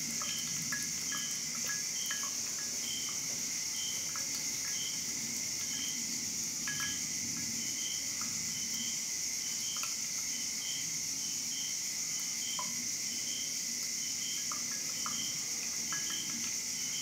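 Coffee draining through a V60 paper filter into a glass server, heard as faint scattered drips. Behind it runs a steady high insect chirring, with a short chirp repeating about once a second.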